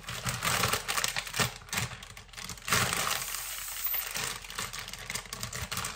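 Plastic zip-lock freezer bag crinkling and rustling as it is handled and pressed shut along its zipper, with many small irregular clicks.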